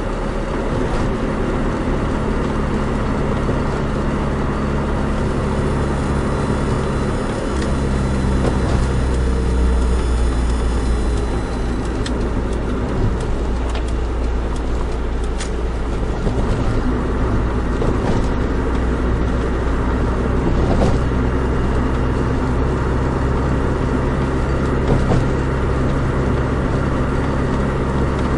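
Nissan Micra 1.3 on the move: steady engine drone over road rumble, with the engine note shifting about seven seconds in.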